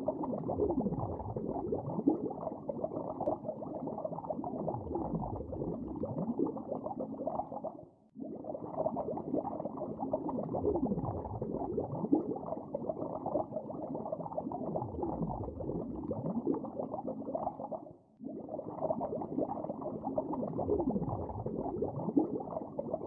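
Muffled underwater bubbling sound effect with a few low tones sliding downward. The loop breaks off briefly and restarts about eight seconds in and again ten seconds later.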